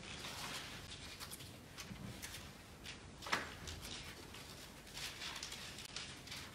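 Bible pages being leafed through: soft, repeated paper rustles, with one sharp click about halfway through.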